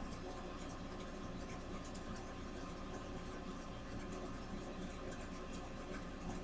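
Faint, irregular scratching and ticking of a fine paintbrush working along a picture frame's edge, over a steady electrical hum.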